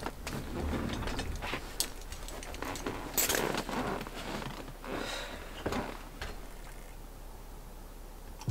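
Irregular rustling, knocks and light clicks of a person moving in a desk chair and picking up a mug to drink, the loudest rustle about three seconds in.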